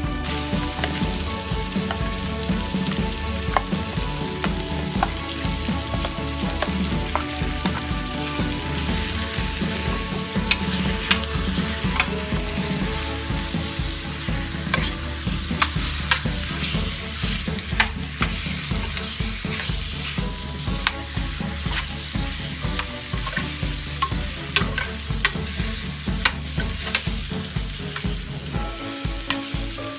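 Marinated chicken pieces sizzling in hot butter and sliced onion in a stainless steel pan, the sizzle jumping up as the chicken drops in at the start. A metal spoon scrapes and clicks against the pan throughout as the pieces are stirred.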